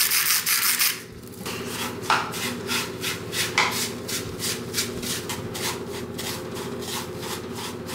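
A salt shaker hissing as salt is shaken into a bowl, stopping about a second in; then gloved hands rubbing and squeezing butter-soaked panko breadcrumbs in a wooden bowl, a quick run of repeated rustling rubs, about four a second.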